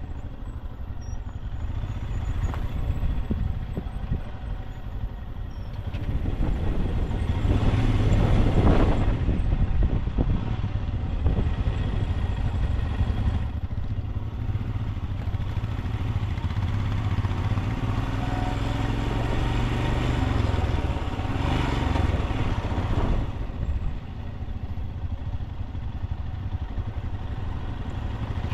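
Royal Enfield Himalayan 411 single-cylinder motorcycle being ridden on the road, with a heavy, continuous low rumble of wind on the microphone. The sound swells louder twice, once about a third of the way in and again about three quarters through.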